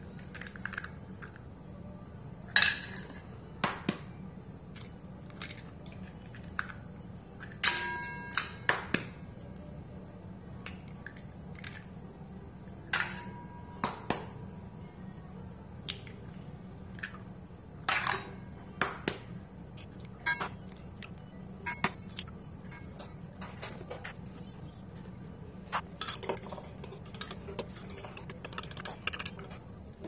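Eggs cracked one after another on the rim of a glass measuring cup: sharp taps and clinks, some ringing briefly, with shells dropped into a stainless steel bowl. Near the end comes a quick run of clicking.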